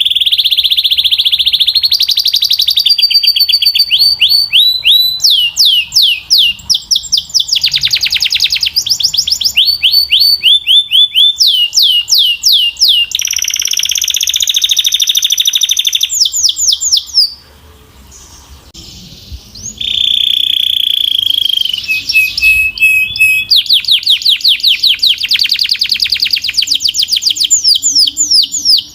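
Belgian canary singing a loud, clear song of fast trills, each a run of quickly repeated notes, switching to a new trill every second or two. The song pauses briefly about two-thirds of the way through, then resumes.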